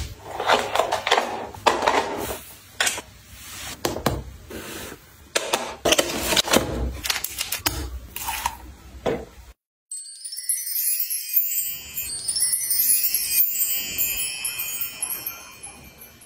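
Close handling sounds of toiletries and bath accessories being hung on wall hooks and set on a shelf, with small clicks and knocks and a bottle cap being unscrewed. About ten seconds in, after a brief silence, a high, glittering chime sound with many ringing tones takes over.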